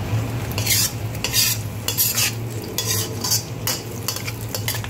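Metal spatula scraping around a wok, stir-frying goose tongues in a sizzling spicy sauce, with irregular scrapes about every half second.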